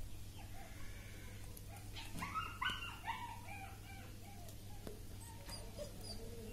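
German Shepherd puppies whimpering and yipping: a quick run of short, high calls that fall in pitch, starting about two seconds in and lasting about a second, then a few fainter ones. A steady low hum runs underneath.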